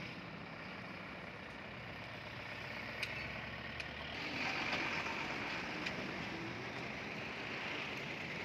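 Road traffic going past: cars and a small pickup truck driving by, with one louder pass swelling about four seconds in and a few faint clicks.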